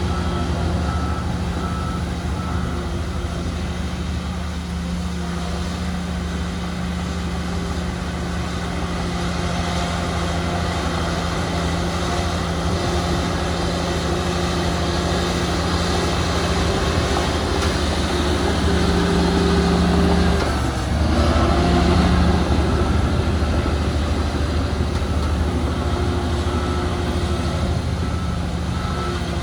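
Heavy diesel earthmoving machinery running steadily, with a reversing alarm beeping at the start and again near the end. About two-thirds of the way through, the engine note swells, then drops briefly before picking up again.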